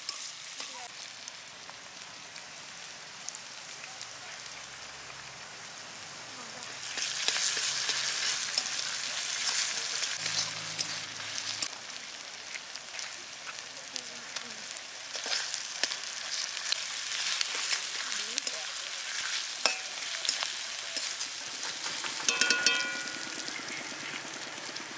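Sliced onions sizzling in hot oil in an aluminium kadai, stirred and scraped with a metal spatula that clicks now and then against the pan. The sizzle grows louder about seven seconds in.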